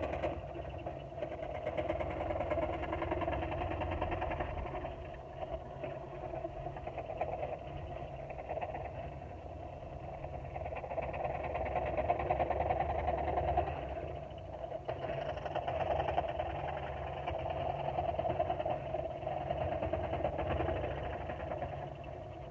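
Porter-Cable scroll saw running, its reciprocating blade cutting through a thin wooden board as the piece is fed and turned by hand. A steady machine sound whose loudness rises and falls slightly with the cut, louder around the middle.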